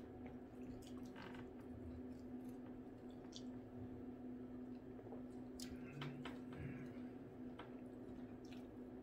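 Faint chewing and wet mouth sounds of someone eating fried fish and fries, with scattered small clicks and taps at the plate, over a steady low hum.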